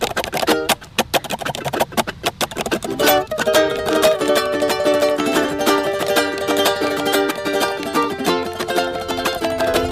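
Background music: a light plucked-string tune. A few scattered notes open it, then about three seconds in it settles into a steady, repeating melody.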